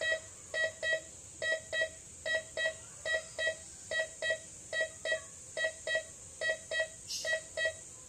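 MD4030 metal detector beeping in short paired tones, about one 'tut-tut' a little more than once a second, as a 23-karat gold ring is passed over its search coil. This is the detector's signal for gold: a soft, not shrill, rather long tone.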